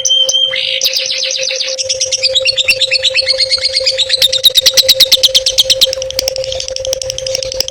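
A songbird sings a fast, varied chirping song, with a run of rapid repeated notes, about ten a second, in the middle. A steady hum runs underneath.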